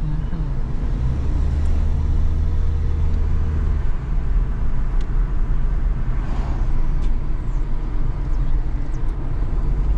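Car cabin noise while driving: the engine's low drone, strongest in the first few seconds, under a steady rumble of tyres on the road.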